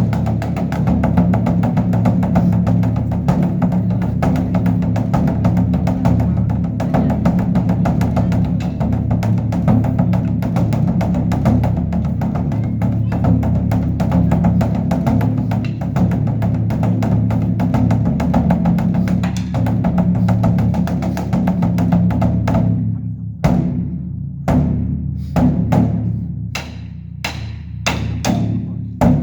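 Korean Buddhist temple dharma drum (beopgo) beaten with two sticks in a fast, continuous roll over its deep ringing tone. About three-quarters of the way through the beating breaks into slower, separate strokes.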